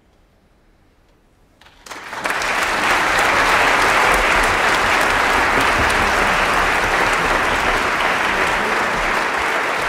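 A short hush, then a concert audience starts applauding about two seconds in: dense, steady clapping that carries on.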